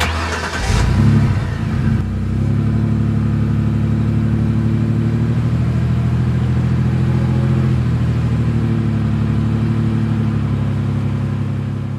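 Truck engine revving briefly, then running steadily with a fast, even throb.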